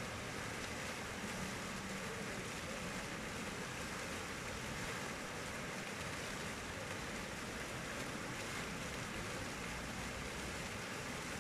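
Fountain jets splashing steadily into the water of their basin: a continuous, even rush of falling water.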